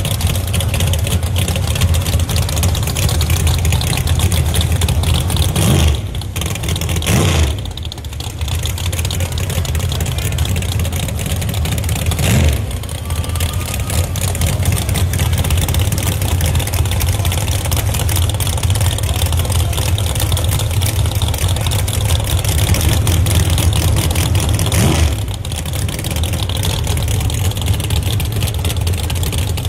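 Drag race car engines running loudly at the starting line: a steady deep rumble with a few brief drops in level.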